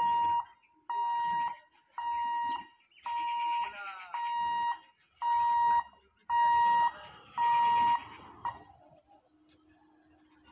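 Level-crossing warning buzzer beeping, a steady electronic tone repeated about once a second, eight beeps, stopping about eight and a half seconds in; it signals the boom barriers moving.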